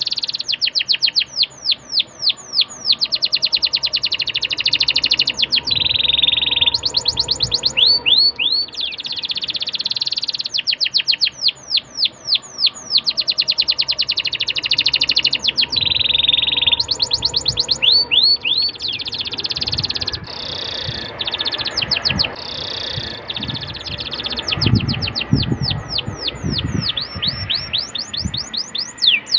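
Domestic canary singing: fast runs of repeated down-sweeping notes and long rolling trills, broken by short pauses.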